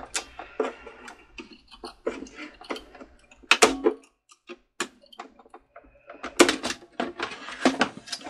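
Irregular plastic clicks, snaps and knocks from wire clips and connectors being worked loose with pliers inside an old Cricut Expression cutting machine's plastic housing, with louder clusters about three and a half seconds in and again near the end.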